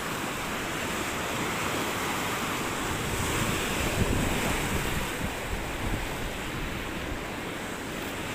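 Sea waves breaking and washing against shoreline rocks, a steady rushing surf that swells to a peak about four seconds in, with wind buffeting the microphone.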